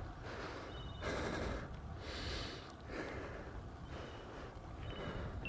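A cyclist's heavy breathing close to a lavalier microphone while climbing uphill, about one breath a second, over a steady low rumble of road noise.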